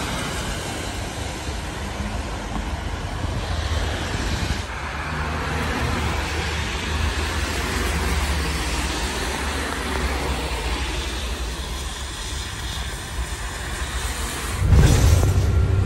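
Steady rumble of a road vehicle in traffic, with sudden changes about a third of the way in and again near the end, where a louder, deeper rumble takes over.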